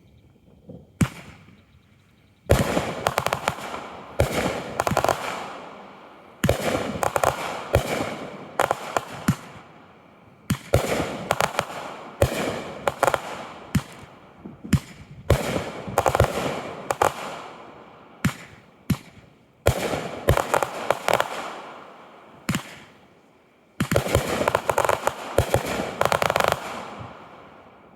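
Aerial fireworks going off in quick succession: sharp bangs, each cluster trailed by dense crackling that fades, repeating every second or two after a single crack near the start.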